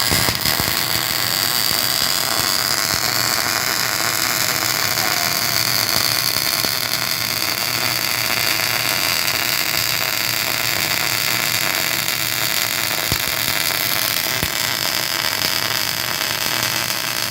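MIG welding arc from a Miller CP-302 constant-voltage DC power source, a steady crackling hiss that starts abruptly and holds without a break.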